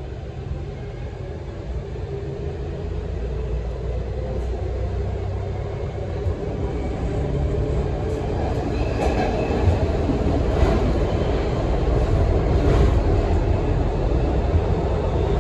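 C14 metro car's traction motors running under the floor, with wheel and track rumble and a few knocks, growing steadily louder.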